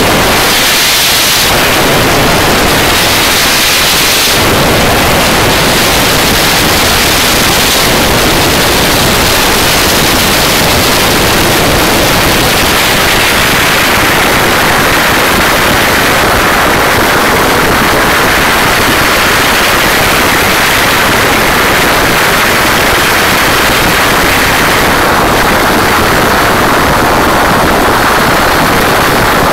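Loud, harsh wind rush on the microphone of a Suzuki GSX-R 750 SRAD sport bike ridden at high speed, overloading into a steady hiss with the engine note lost in it. The noise thins briefly twice in the first few seconds.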